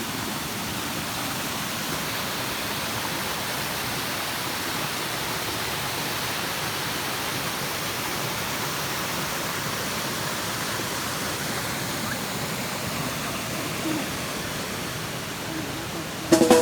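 Waterfall rushing steadily, an even hiss of falling water. In the last moment, music with drums cuts in abruptly.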